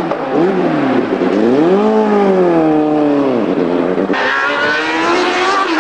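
Formula One car engine running at high revs, its pitch dropping, climbing and dropping again as the car changes speed. About four seconds in, the sound switches abruptly to a brighter, steadier engine note.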